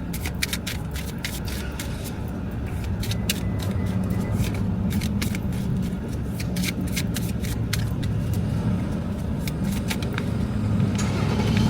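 A deck of small cards being shuffled and flicked through, a rapid run of sharp clicks and rustles, over the steady low hum of a car's engine running, heard inside the cabin.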